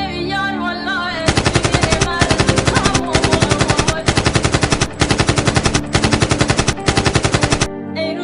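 Machine-gun fire sound effect: seven bursts of rapid shots, about ten a second, each burst about a second long with short breaks between. Music plays briefly at the start and comes back near the end.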